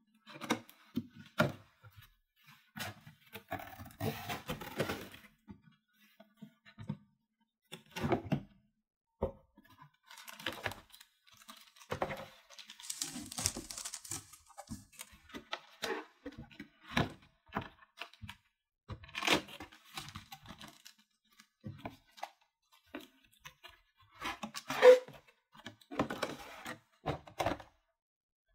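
Toy unboxing: small toy kitchen pieces being handled, tapping, clicking and knocking against each other and a surface, with packaging rustling and tearing about four seconds in and again from about ten to fourteen seconds in. The sharpest knock, near the end, is the loudest.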